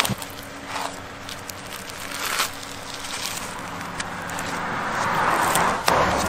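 Knife prying and scraping the fibrous husk off a roasted coconut: scattered cracks and clicks, and a rough rasp that swells over the last few seconds and ends in a sharp click.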